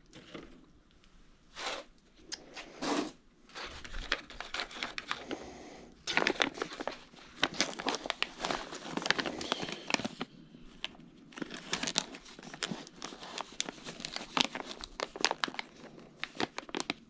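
Hands rummaging through plastic packaging and small parts: crinkling and rustling with many quick clicks. A few rustles in the first seconds, then steady busy handling from about six seconds in, with a short lull around ten seconds.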